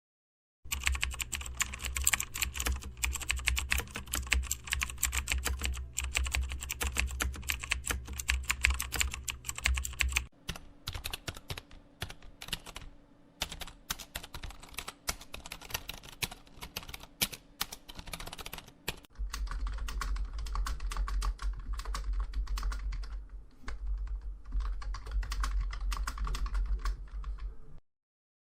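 Rapid keyboard typing: a dense, continuous run of key clicks in three stretches that change at about ten and nineteen seconds in, with a low hum under the first and last stretches.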